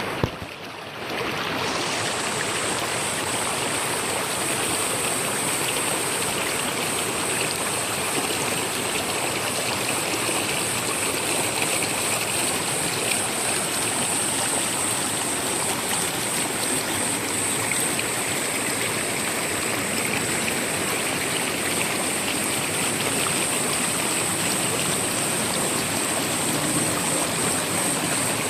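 Mountain valley stream flowing, a steady rush of water, with a steady high hiss on top from about two seconds in.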